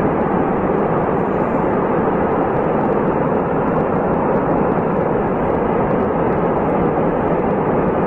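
Rockslide: rock and debris falling down a mountainside in one loud, continuous rumble that holds steady without a break.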